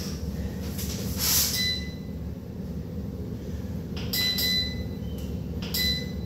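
Anvil Foundry electric brew kettle's digital controller beeping as its buttons are pressed to set the temperature: several short, high beeps, each with a click, about a second and a half in, twice around four seconds, and once near the end.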